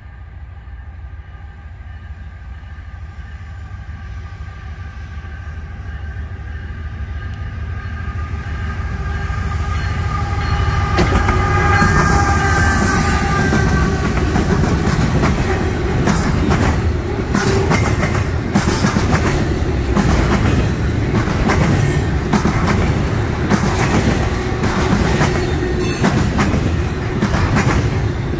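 Diesel freight train approaching with its horn sounding a chord, the horn's pitch dropping slightly as the lead locomotives pass about 12 seconds in. The engines' rumble grows loud. After that, intermodal cars roll by with steady rail clickety-clack.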